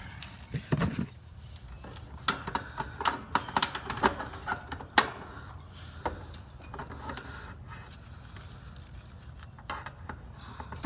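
Scattered light metallic clicks and knocks from handling a replacement capacitor and its bent metal mounting strap as they are fitted into the HVAC unit, with one sharper knock about halfway through.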